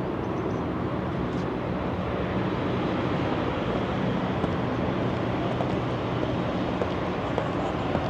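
Steady traffic noise from a multi-lane expressway: a continuous wash of tyre and engine sound from many vehicles passing.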